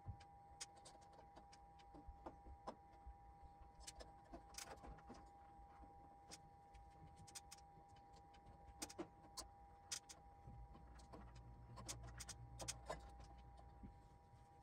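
Faint, scattered small clicks and rustles of electrical wires being handled and twisted together into wire nuts, over a faint steady whine.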